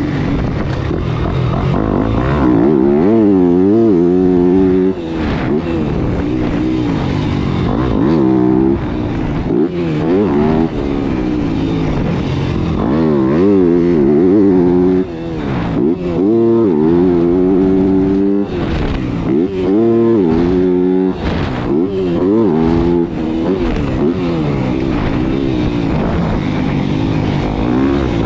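Yamaha motocross bike's engine heard from on the bike, revving hard with its pitch climbing, then dropping off, over and over as it is ridden around a dirt track.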